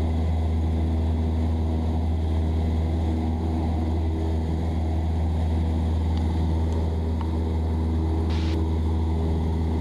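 Cessna 172's piston engine and propeller droning steadily at climb power just after takeoff, heard from inside the cabin.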